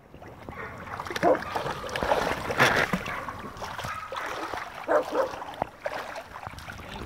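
Shallow creek water splashing and sloshing around a small dog's legs as it wades, in uneven surges, the biggest splash about two and a half seconds in.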